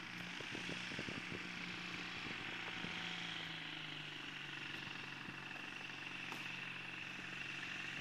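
Kitfox light aircraft's engine and propeller running steadily at a distance, a constant low hum with a high tone that slowly drops in pitch.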